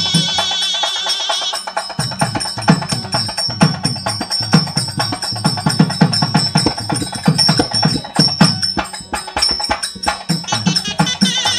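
Kuzhal, the Tamil double-reed folk pipe, playing an ornamented folk-song melody over fast drum strokes and clicking percussion. The drum drops out for the first couple of seconds, then beats quickly.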